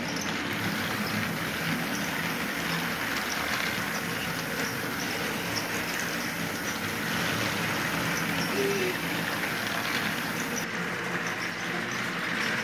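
Battery-powered Thomas & Friends TrackMaster toy engines running around plastic track, their small motors and wheels making a steady whirring rattle.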